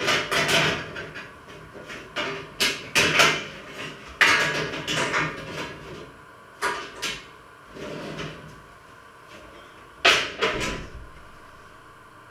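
Someone rummaging in a low kitchen cupboard: six or so bouts of knocking and clattering as cookware and doors are moved. The loudest knocks come about four seconds in and about ten seconds in.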